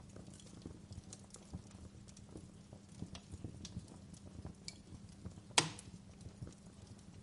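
Wood fire crackling in a fireplace: irregular small snaps and pops over a low steady background, with one loud sharp pop about five and a half seconds in.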